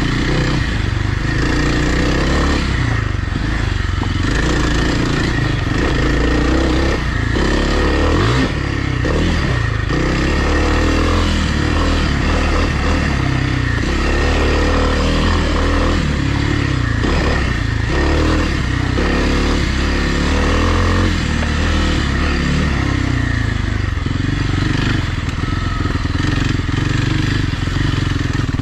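Dirt bike engine ridden on a trail, its pitch rising and falling again and again as the throttle is opened and closed.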